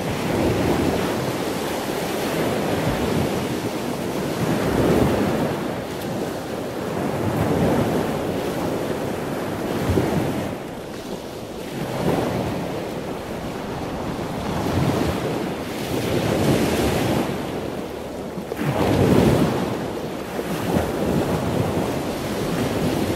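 Small waves lapping in over a shallow sandy beach, heard right at the waterline with water washing over the microphone. Each wave swells and falls away every two to three seconds.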